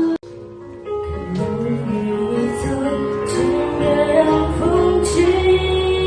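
A song: a singing voice carrying a melody over instrumental backing. It drops out briefly just after the start and comes back in about a second in.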